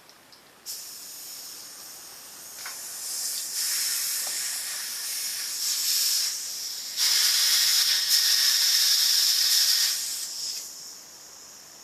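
Compressed air hissing steadily through an inflator chuck into a presta bicycle valve as the tire is pumped up. It starts under a second in, grows louder in steps, and stops shortly before the end.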